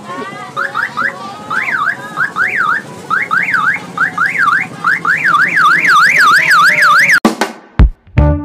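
An electronic siren warbling up and down, at first in uneven whoops, then in a fast, even rise and fall of about four cycles a second. It cuts off suddenly about seven seconds in and is followed by a few loud drum hits.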